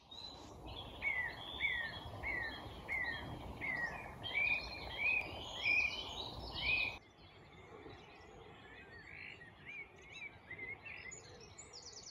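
Birds singing: a series of short, downward-slurred whistled notes repeated roughly every half second over a steady outdoor noise background, which drops away abruptly about seven seconds in. Fainter chirps follow, with a rapid trill near the end.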